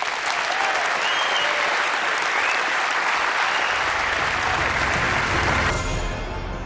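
Large audience applauding steadily, with some cheering. About four seconds in, the low beat of outro music comes in, and the applause cuts off abruptly shortly before the end as the music takes over.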